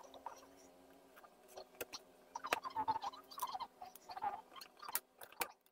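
Irregular clicks, taps and scrapes of a metal screwdriver and hands handling parts inside an opened LED TV.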